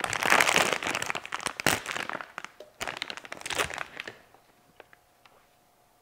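Crinkling of a plastic Boveda humidifying bag being handled, in bursts that die away about four seconds in, leaving a few light clicks.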